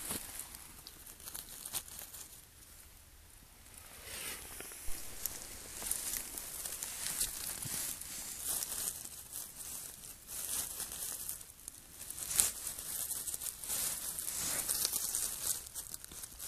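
Dry fallen leaves and twigs crackling and rustling as the leaf litter of a forest floor is disturbed, in irregular bursts, with a quieter spell about two to four seconds in and a sharp crack about twelve seconds in.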